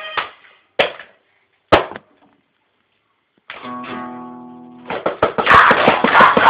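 Noise-grind music: two sharp hits and a pause, then a guitar chord rings out and fades. About five seconds in, loud, dense, fast music with rapid drum hits kicks in.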